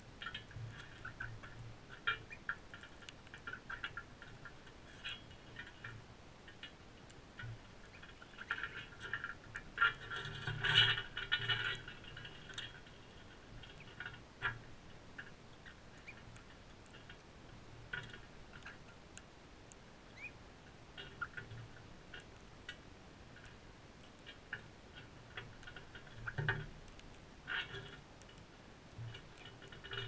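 Crimson rosellas feeding on seed: irregular clicks and ticks of beaks cracking seed husks and knocking against the seed bowl, busiest around ten to twelve seconds in.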